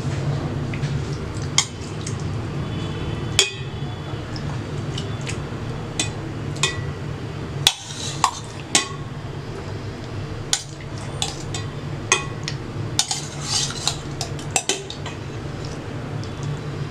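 A kitchen utensil clinking and scraping against a cooking pot in scattered, irregular taps as fried chicken pieces are spread over a layer of rice. A steady low hum runs underneath.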